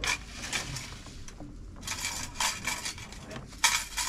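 Spoons and metal plates clinking and scraping as food is served, in scattered clusters of sharp clinks, the loudest a little before the end.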